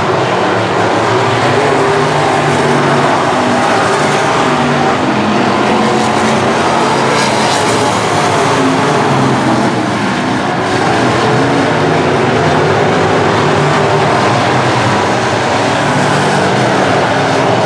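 Loud engines of several USRA B-Modified dirt-track race cars running at racing speed as the pack laps the oval. The overlapping engine notes rise and fall as the cars pass and power off the turns.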